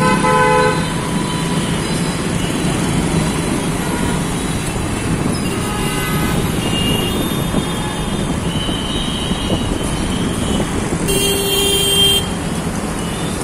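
Steady engine and road noise of an auto-rickshaw moving through city traffic, with vehicle horns honking several times: one near the start, a few short toots around the middle, and a longer honk about eleven seconds in.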